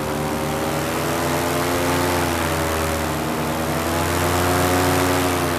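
Paramotor's two-stroke engine and propeller running steadily in flight, a continuous drone whose pitch rises and falls slightly as the throttle is worked.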